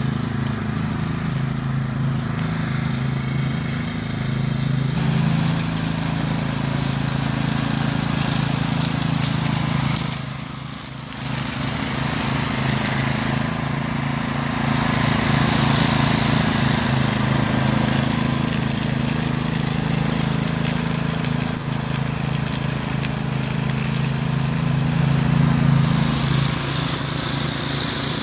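Cub Cadet CC30H rear-engine riding mower running steadily while mowing and bagging leaves, its engine note holding even. The sound briefly drops about ten seconds in, then picks up again.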